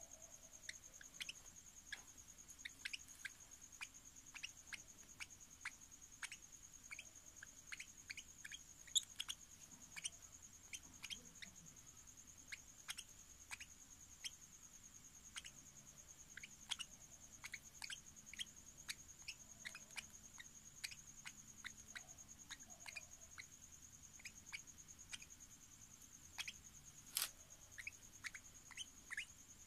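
Young parrot chick giving quick, soft, squeaky feeding chirps and ticks, a few a second and irregular, as it takes hand-feeding formula from a spoon.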